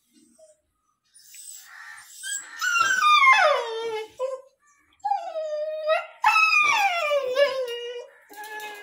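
Six-month-old Indian native puppy crying in distress: a few long, whining howls, each sliding down in pitch, growing louder after the first couple of seconds. He is crying because his owner left without taking him along.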